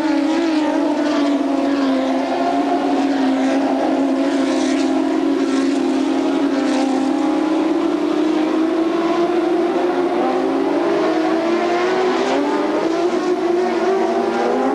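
A pack of BMW M1 Procar racers' straight-six engines running hard at high revs. The pitch sags gently and then climbs again after about ten seconds as the cars pass and accelerate.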